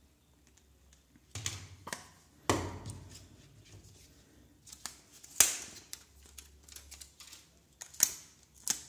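Packaging being handled: scattered taps and clicks as a small plastic bag and a white earphone packaging tray are picked up and moved about. The sharpest click comes about five and a half seconds in.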